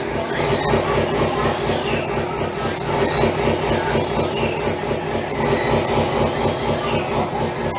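Live experimental noise music: a dense, grinding drone under a high squealing, wavering tone that swells up and falls back about every one and a half to two seconds.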